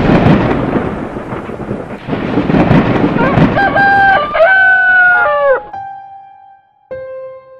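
Thunder rumbling, then a rooster crowing once, starting about three and a half seconds in. A keyboard note starts near the end.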